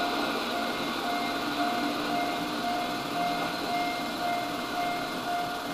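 Steady mechanical whir of an 8mm film projector running, with a faint whine that pulses about twice a second.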